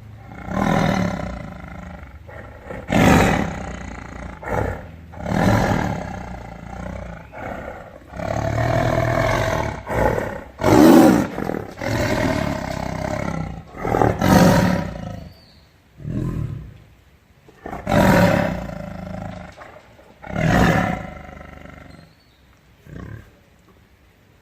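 Tiger roaring and growling over and over, about a dozen calls of uneven length, some short and some drawn out, the loudest in the middle, thinning out and fading near the end.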